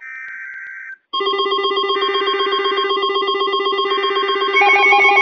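A short burst of the Emergency Alert System's digital header tones, a high buzzing screech, for about a second; then from about a second in a weather alert radio's electronic alarm sounds, a loud, rapidly warbling, buzzy tone. A second, higher-pitched alarm joins near the end. The alarms signal that a new warning is being received.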